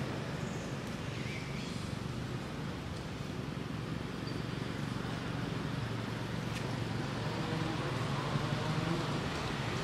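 Steady low mechanical hum under continuous outdoor background noise, with a faint short chirp about a second in.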